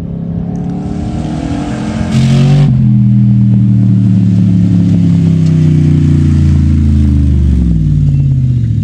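Off-road rally pickup truck's engine revving hard under acceleration, climbing in pitch. About two seconds in there is a brief loud hiss and a drop in pitch like an upshift. It then runs loud and steady, and its pitch falls near the end.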